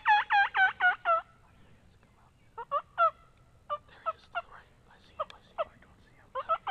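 Wild turkey calling: a fast run of about eight loud yelps that stops a little over a second in, then a string of short, scattered clucks.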